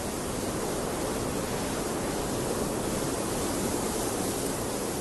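Steady, even rushing hiss with no change in level or pitch.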